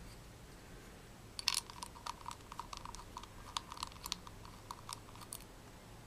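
Small Phillips screwdriver backing a screw out of a 2.5-inch laptop hard drive's side mounting bracket: faint, irregular metal clicks and ticks, starting about a second and a half in and stopping near the end.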